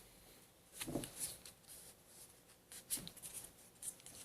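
Faint rustling and tapping of game cards being handled and flipped, with a few short brushes about a second in and again near three and four seconds.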